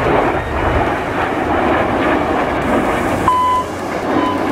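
Steady jet roar from a formation of Red Arrows BAE Hawk T1 jets, each powered by a single Adour turbofan, flying past trailing display smoke. Two brief steady whistle-like tones sound near the end.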